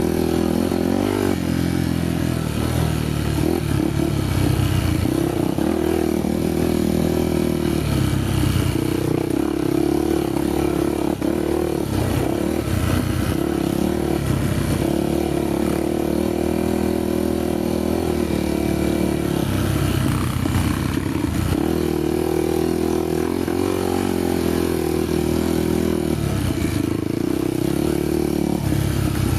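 Honda XR250 Tornado's single-cylinder four-stroke engine running while ridden, its pitch rising and falling with the throttle.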